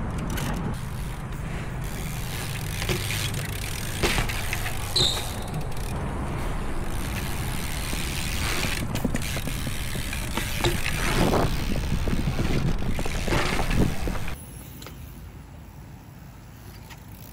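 BMX bike rolling on concrete: a steady rumble and rattle from the tyres and frame, with several sharp knocks as the bike hits the ground. It drops to a much quieter background about fourteen seconds in.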